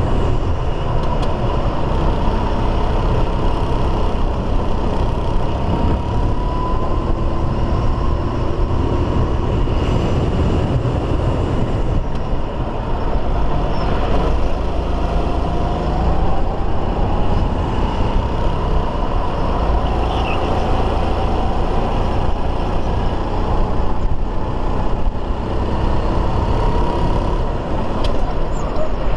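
Racing kart's engine running at race pace, heard from on board. Its pitch climbs and drops as it accelerates and slows for the corners, over a steady low rumble.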